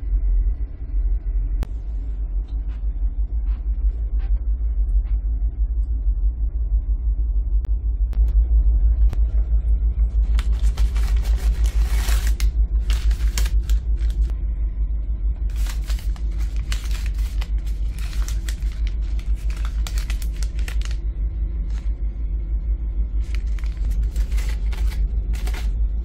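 Steady low rumble of the ferry's engines heard in the cabin, with crinkling of plastic-wrapped toiletry packets being handled in several bursts over the second half.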